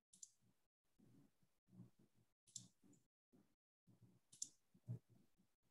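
Near silence with a handful of faint, scattered computer mouse clicks and soft knocks.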